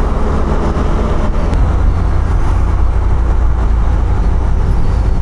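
Riding a motorcycle, heard from the rider's own camera: the engine and road noise run under a strong, steady rumble of wind on the microphone.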